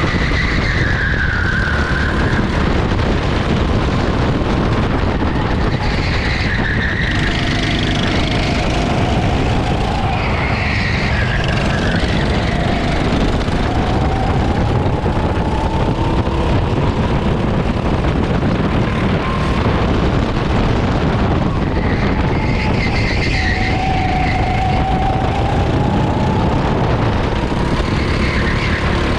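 Racing kart's engine heard from onboard at speed, its pitch climbing slowly for several seconds at a time on the straights and dropping off several times as it slows for corners, over a steady rush of wind and track noise.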